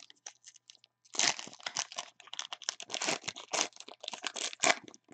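Clear plastic crinkling as a football trading card is handled and slipped into a plastic sleeve: a run of quick, close crackles that picks up after a short lull about a second in.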